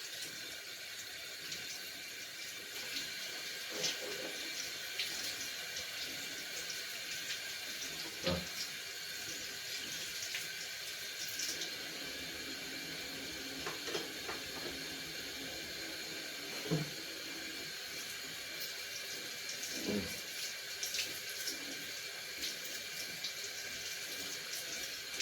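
Tap water running steadily into a sink, with a few faint knocks.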